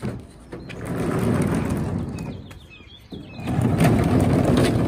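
Caster wheels of dollies rolling over asphalt under a small aluminum rowboat as it is pushed and swung round, a rough rumble in two pushes with a short pause about two and a half seconds in. A bird chirps a few times during the pause.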